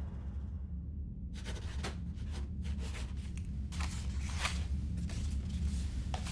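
Paper rustling and a pen scratching as papers and a folder are signed and handled, in short scattered strokes starting about a second in, over a steady low hum.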